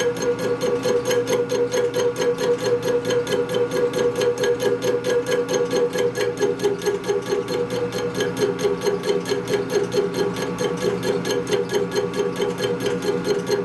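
A machine tool cutting an aluminum brake caliper bracket, running steadily with an even, rhythmic chatter of about four to five pulses a second over a constant whine.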